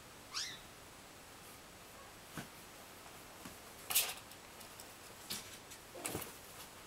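Young kittens scrambling at a cardboard pen wall: scattered scratches and knocks, the loudest about four and six seconds in. A brief high squeak comes just under half a second in.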